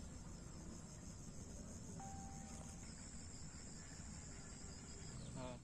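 Crickets chirping in a steady, high-pitched chorus over a low background rumble.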